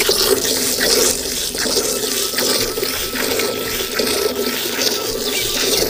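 Cow's milk squirted by hand from the teats into a steel pail of frothy milk: a hissing splash that pulses with each squeeze, about two squirts a second.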